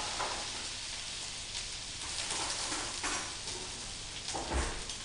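Salmon fillet frying in browned butter and lemon juice in a frying pan: a steady crackling sizzle. A short knock near the start and a dull low thump about four and a half seconds in.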